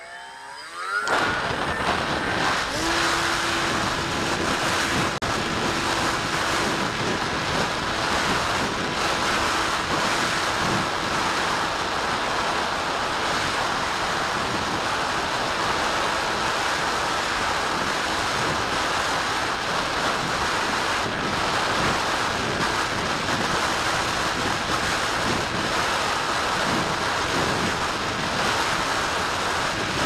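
Wind rushing over the onboard camera of a Bixler 3 electric RC glider in flight, a steady loud noise. About a second in, the electric motor whines up in pitch as the glider launches, and a faint steady motor tone runs under the wind.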